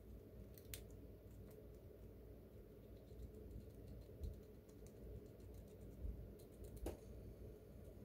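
Faint, irregular clicking and crunching of a Siberian chipmunk gnawing a seed held in its paws, with two sharper cracks, one a little under a second in and one near the end.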